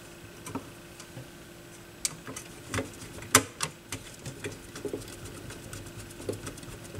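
Scattered small clicks and taps of parts being handled and fitted inside an open turntable chassis, the loudest about three and a half seconds in, over a faint steady hum.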